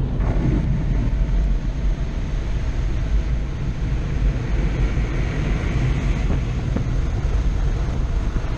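Car wash dryer blowers blasting air right beside the driver's window, heard from inside the cab as a steady, loud rush of air, loud enough to hurt the ears.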